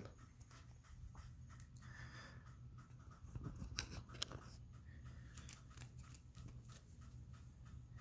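Near silence: a low steady hum with faint scattered clicks and rustles of a phone being handled.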